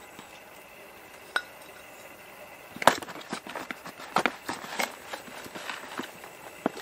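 Small hand trowel scooping soil out of a plastic bucket: a couple of single knocks in the first second and a half, then a run of scrapes and light clicks from about three seconds in.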